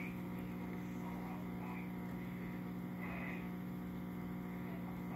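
Aquarium filter humming steadily: a constant low electrical hum.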